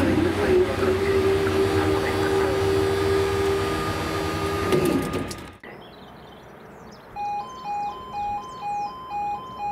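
A Class 37 diesel locomotive running past close by with heavy engine rumble, and one long steady tone held for about four seconds. At about five and a half seconds the sound cuts to a much quieter scene: a level crossing alarm sounding two alternating tones about twice a second, with birds chirping.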